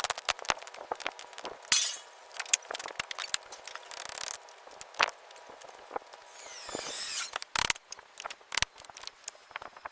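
Repair work noises: a run of sharp clicks, knocks and clinks, with several bursts of scraping. The longest scrape, about six seconds in, rises over about a second.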